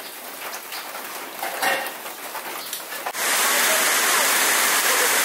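Rain: scattered drops ticking and clinking at first, then, about three seconds in, a sudden change to the loud, steady hiss of a heavy downpour.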